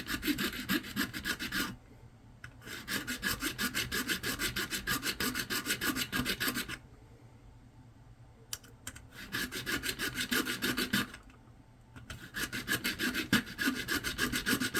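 A tool rasping into the plastic housing around a Raymarine e7 chart plotter's SD card reader: rapid, even scraping strokes in four bursts, with short pauses after about 2 seconds, near 7 seconds and near 11 seconds.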